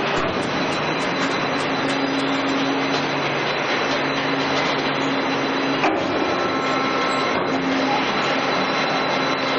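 Vecoplan VAZ 2000 industrial shredder running with its cutting rotor spinning empty: a steady mechanical noise with a faint steady hum underneath.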